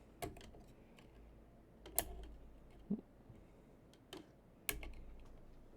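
A few scattered light clicks and taps of plastic as a PC case fan and its hub retaining ring are handled, the sharpest about two seconds in and again near the end.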